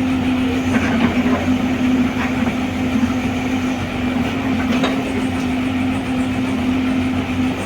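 Heavy diesel engine of a crawler excavator running steadily under work, with a few faint knocks scattered through.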